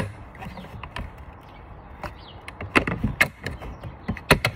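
A flathead screwdriver is prying apart the plastic parts of a Dyson V8 cordless vacuum. There is a sharp click at the start, then scraping and a cluster of plastic clicks and knocks about three seconds in and again just after four seconds.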